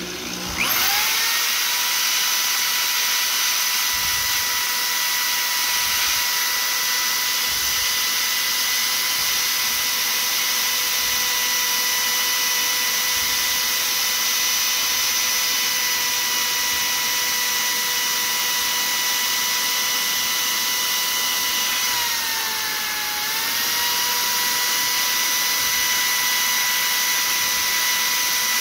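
A power tool's electric motor spinning a small-block Mopar 318 oil pump drive shaft while a Scotch-Brite pad is pressed against it to polish out scoring. The motor spins up at the start into a steady whine, sags in pitch for a moment about 22 seconds in as it is loaded, then comes back up to speed.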